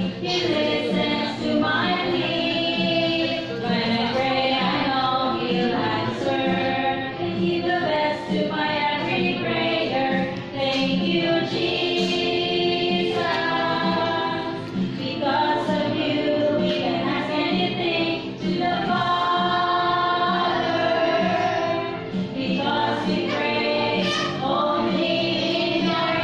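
A group of young children singing a worship song together, over a musical accompaniment with a steady beat.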